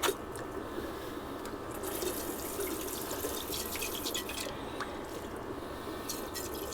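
Water spraying from a hand-pumped pressurized bag sprayer, running steadily onto coffee maker parts in a sink, with light drips and a few small clinks.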